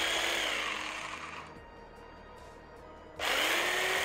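Black & Decker KS900EKX 600 W pendulum jigsaw running with no load at its top speed setting, in two short trigger pulls: the motor spins up with a rising whine, runs about two seconds and winds down when the trigger is let go. The second pull comes about three seconds in.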